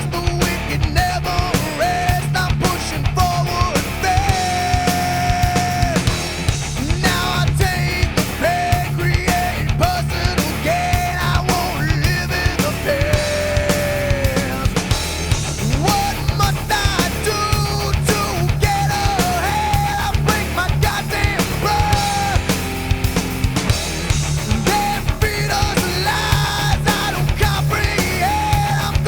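Nu metal band playing: pounding drums, bass and electric guitar at a steady loud level, with long held notes that bend in pitch.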